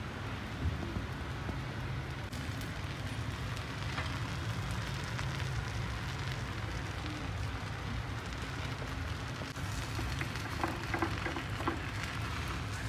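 Moong dal chilla batter frying in oil on a hot tawa, a steady crackling sizzle over a low hum, with a few sharper crackles near the end.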